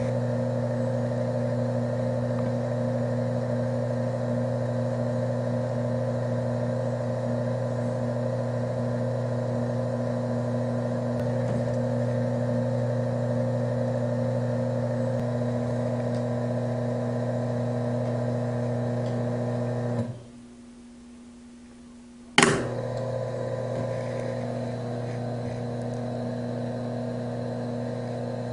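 A steady electric motor hum. It cuts out for about two seconds about two-thirds of the way through, then starts again with a sharp click.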